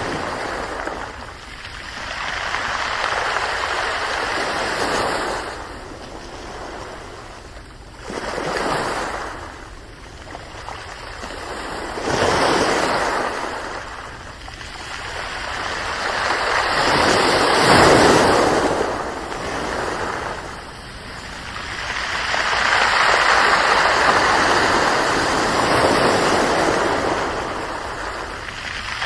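Ocean waves breaking and washing up the shore in repeated swells, each surge building and falling away over a few seconds; the biggest one comes about two-thirds of the way through.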